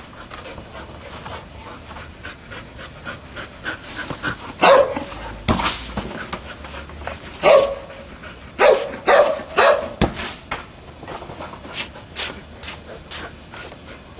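Entlebucher mountain dog barking in a run of about six short, sharp barks in the middle of the stretch, with quieter scuffs and knocks around them.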